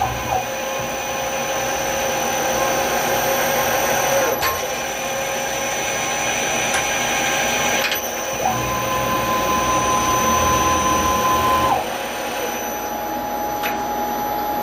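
PM-727M CNC mill spindle running a tap in a compression tapping head, threading holes in an aluminium block. It gives a steady motor whine over a noisy hiss. The whine changes about four and eight seconds in, and a higher whine holds for a few seconds after that.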